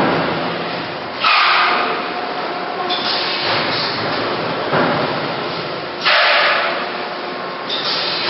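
Robot-arm PS foam box forming and cutting machine running through its cycle: a steady noisy hiss, with a sudden loud surge about a second in and another about five seconds later, and smaller ones between.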